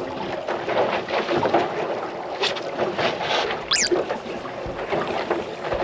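Ambient sound on a small fishing boat at sea: wind buffeting the microphone and water washing against the hull, with scattered knocks and one brief high sweeping squeak a little over halfway through.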